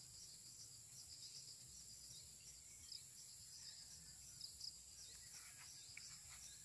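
Near silence outdoors with a faint steady high insect drone and small repeated chirps, plus a few faint scuffs near the middle.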